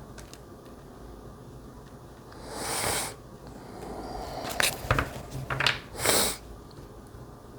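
Tarot cards being shuffled by hand: two short rustling swishes with a quick run of sharp card clicks and snaps between them.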